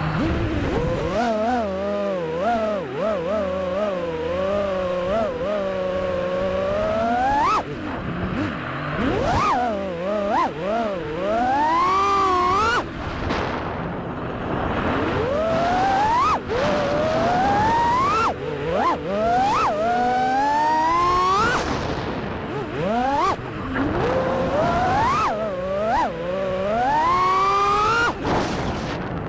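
FPV racing quadcopter's brushless motors whining, the pitch sweeping sharply up and down over and over as the throttle is worked.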